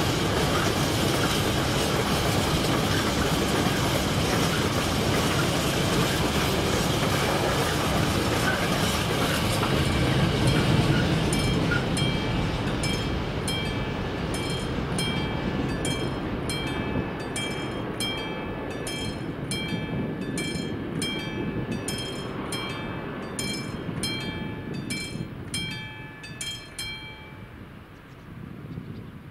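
Long freight train of container wagons rolling past with clattering wheels, fading as the tail passes after about ten seconds. The level crossing's warning bell rings on at about two strokes a second and stops a couple of seconds before the end.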